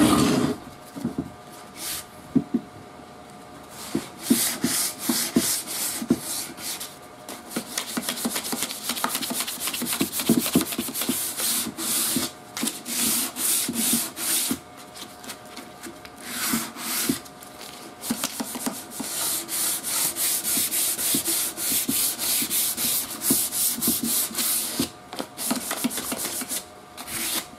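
220-grit sandpaper rubbed by hand over the old shellac finish of a wooden radio cabinet in runs of quick back-and-forth strokes with short pauses. It is scuffing the crazed shellac to break the glaze, not sanding down to bare wood.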